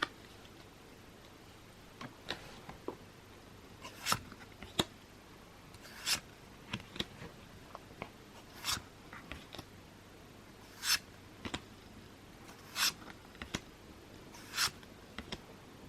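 Pokémon trading cards handled one at a time from a freshly opened booster pack: short papery swishes as each card is slid off the stack, about every two seconds, with light ticks and taps between.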